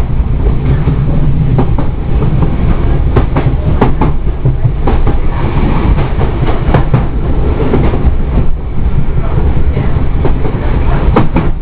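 On-board running noise of a Merseyrail Class 507 electric multiple unit at low speed: a steady low rumble with irregular sharp clattering knocks from its bogies on the track.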